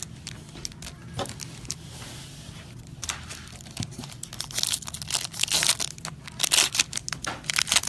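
Foil trading-card pack wrappers crinkling and tearing, with quick rustles and clicks of cards being handled. The crinkling grows denser and louder in the second half.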